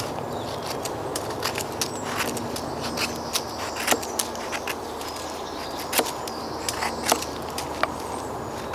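Knife carving a wooden spoon blank: a series of short, irregular cutting snicks as shavings are sliced off, the sharpest about 4, 6 and 7 seconds in.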